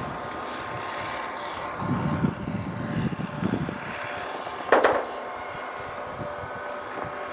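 Distant train locomotive running, a steady drone with faint steady tones over it. A short loud burst sounds just before five seconds in.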